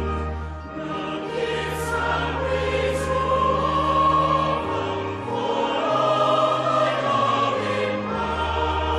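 Choral singing of a hymn with instrumental accompaniment, in long held notes over a slowly changing bass.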